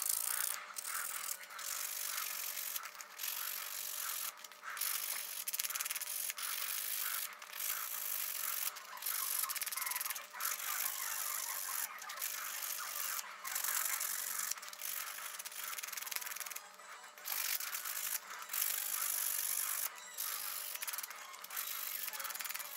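Hand-sanding the edges of a laser-cut wooden kit part with a folded sheet of sandpaper: repeated rubbing strokes broken by short pauses about once a second. The sanding gives the edges that will be glued a clean surface for the glue.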